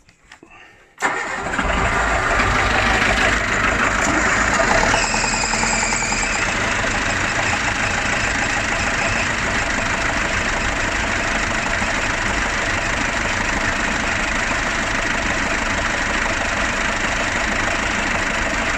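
1979 Princess 32 motor cruiser's inboard engine starting from cold about a second in, catching and then idling steadily. It runs louder and busier for a stretch around four to six seconds in before settling to an even idle.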